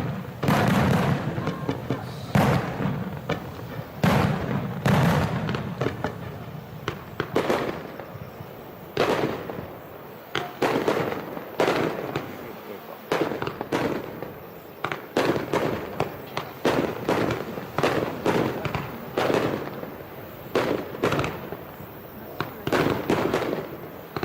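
Aerial fireworks shells bursting in quick, irregular succession, sharp bangs one after another, each with a short echoing rumble behind it.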